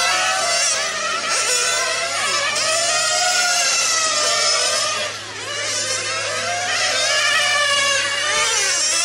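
Several 1/8-scale nitro RC racing cars running together, their small two-stroke glow engines screaming at high revs, each pitch rising and falling as the cars accelerate down the straights and lift for the corners.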